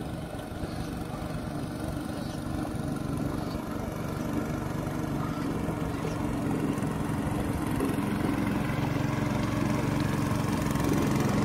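Small boat engine running steadily, growing gradually louder.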